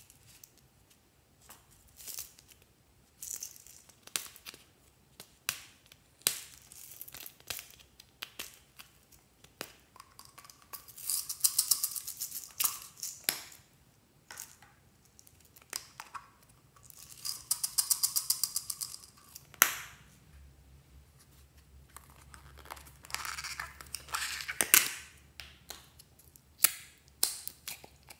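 Small plastic containers, caps and tubes handled by hand over a glass tray: scattered clicks and taps, with two stretches of quick, even rattling ticks, one about eleven seconds in and one about eighteen seconds in.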